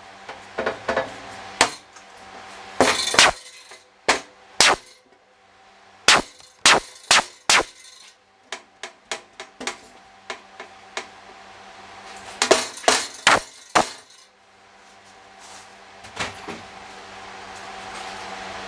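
Mallet blows on diamond-plate sheet metal as it is bent: sharp, ringing clangs in irregular clusters, some hard and some lighter taps.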